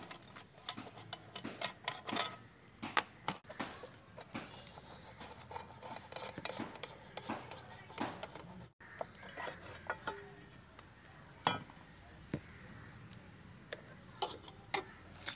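Scattered metal clicks and clinks of a screwdriver and hand on the carburettor cover and screws of an LML Vespa Select 2 scooter as the cover is unscrewed and taken off. The clicks are thickest in the first half.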